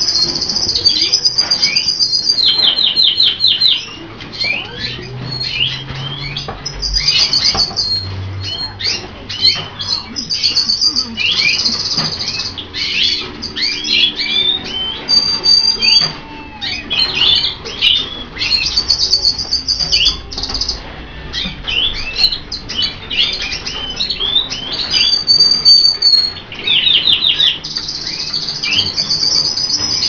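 Several colour canaries singing and calling at once: a continuous high warbling of chirps and whistles, with fast rolling trills about three seconds in and again near the end.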